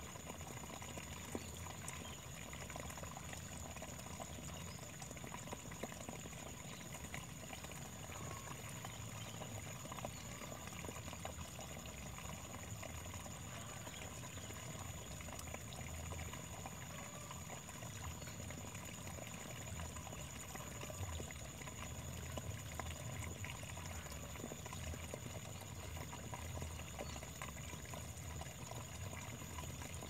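Waterfall: water pouring and splashing steadily, with a low rumble underneath.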